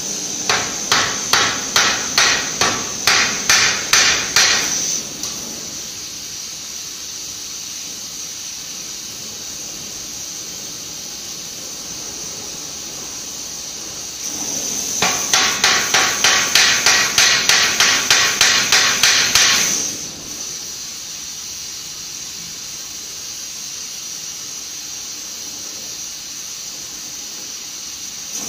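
A hand hammer peens a hot 10 mm rivet tail flat into a countersunk hole, in two runs of quick taps about three a second. The first run lasts about five seconds from the start; the second runs from about fourteen to twenty seconds in. Between and under the taps a gas torch hisses steadily as it keeps the rivet hot.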